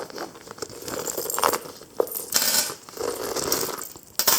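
Metal chain handle of a handbag jingling and clinking as it is handled, with a few sharp clicks among the rattling.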